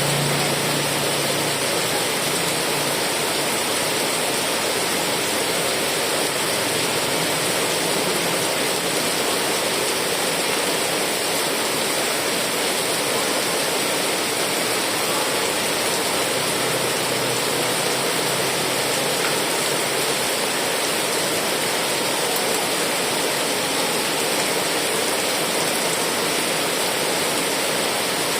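Heavy rain falling steadily, a dense, even hiss. A faint low hum sits under it for the first few seconds and again about two-thirds of the way through.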